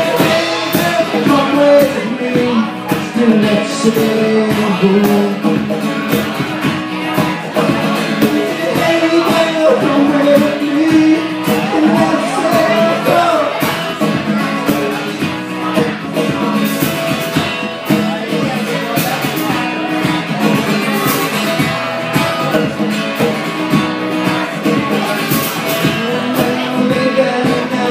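Live acoustic rock duo playing: acoustic guitar strummed over drums and a hand drum, with steady percussive hits throughout.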